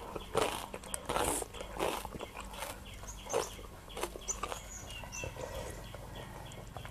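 Close-miked chewing and crunching of crisp raw field crab papaya salad and fresh vegetables. There is a crunchy bite about every three-quarters of a second, and they grow quieter after about four seconds.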